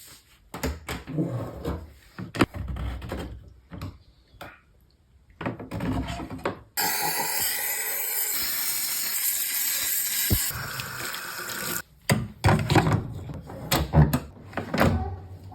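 Water from a tap running steadily for about five seconds in the middle, with irregular splashing and knocks before and after.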